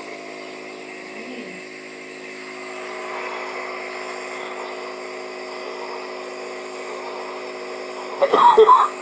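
A steady mechanical hum holding several fixed tones, with a person's voice breaking in loudly near the end.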